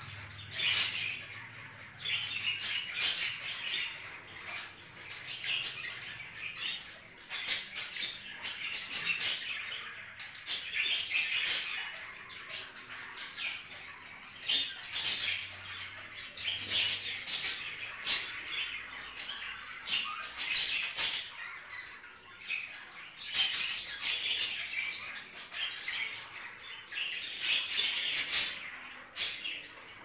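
Budgerigars chattering and warbling continuously, a busy stream of sharp chirps, clicks and squawks.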